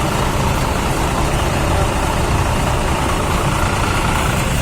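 Road traffic with a motor vehicle engine idling close by: a steady, loud rumble with no distinct events.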